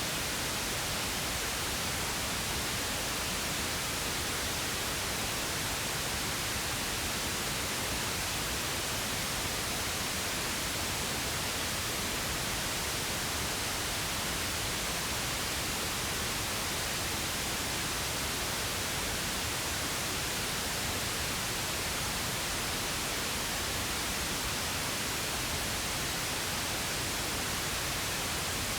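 Pink noise: a steady, even hiss with no changes.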